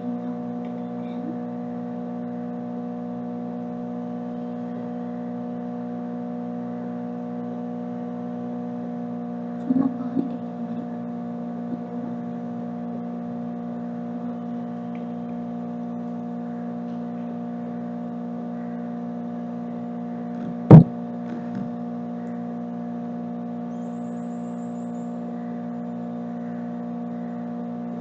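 A steady hum made of several unchanging tones, with a single sharp knock about three-quarters of the way through.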